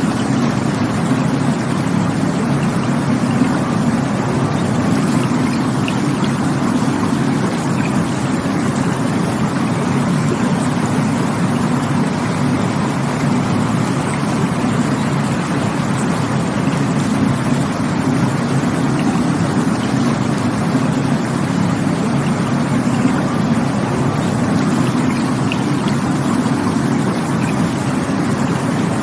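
Rushing water of a stream or falls, a deep, steady, unbroken rush.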